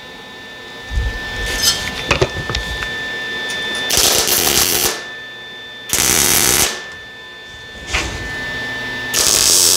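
MIG welder laying three short tack welds on a steel tube joint, each a burst of about a second: about four seconds in, about six seconds in, and near the end.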